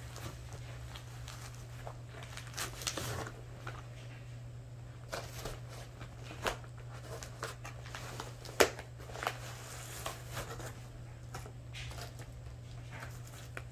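Crinkling and rustling of a glossy plastic mailer bag as packaged items are pulled out of it and set down, in scattered short crackles, with one sharper tap a little past the middle.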